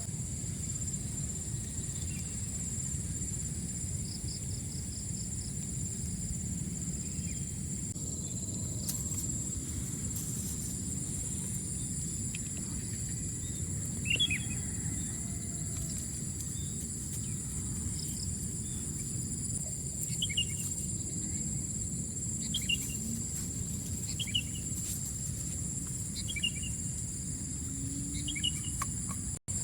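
Rural outdoor ambience: insects trill steadily at a high pitch over a low background rumble, with short bird chirps repeating every second or two from about halfway through. The sound drops out for an instant near the end.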